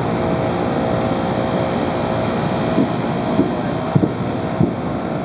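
Steady, distant drone of an AC-130 gunship's four turboprop engines overhead. In the second half come several short, dull low pops, the sound of its 40mm Bofors autocannon firing at a distance.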